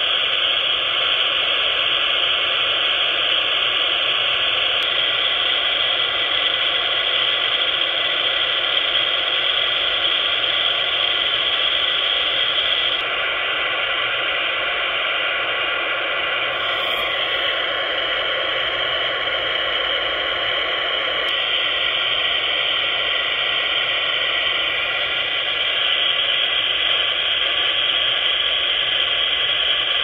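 Uniden SDS100 scanner's speaker putting out steady static on an 800 MHz Motorola SmartZone control-channel frequency, the data not coming through in this mode. The hiss changes tone abruptly several times, with a small click in the middle, as the receive filter setting is switched.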